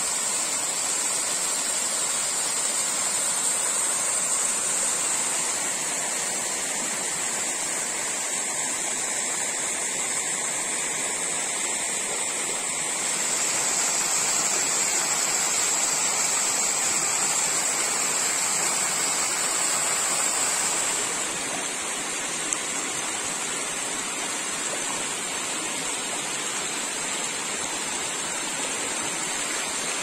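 Small mountain-river waterfall pouring over stepped rock ledges into a pool: a steady rush of falling water. It is a little louder in the middle and eases slightly about two-thirds of the way through.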